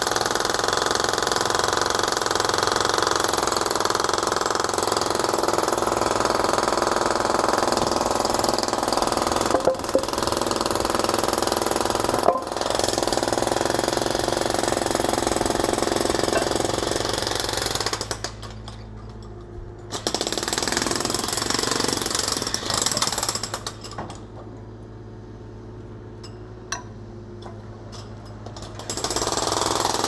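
Jackhammer breaking concrete on road works, running steadily, stopping for about two seconds past the middle and for about five seconds near the end before starting up again. Two sharp knocks stand out about ten and twelve seconds in.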